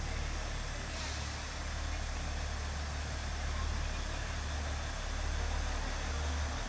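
Matheran Hill Railway's narrow-gauge toy train running, a steady low rumble with a constant noise over it.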